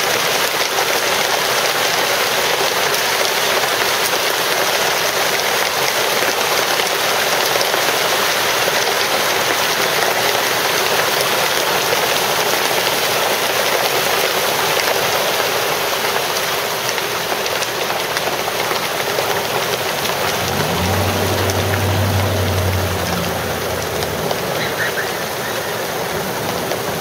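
Large hailstones falling and hitting a paved street and lawns, a dense, steady hiss of countless small impacts.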